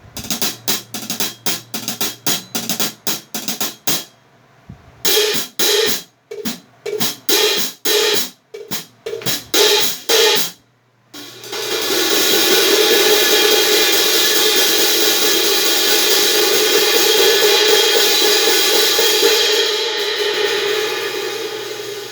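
A pair of 17-inch Heartbeat Raw series hi-hat cymbals, mounted upside down with the top cymbal underneath and the bottom on top, being played. First comes a run of quick, even strokes, about four a second, then a set of separate strokes with short gaps. After a brief pause near the middle comes a long, sustained open wash that fades near the end.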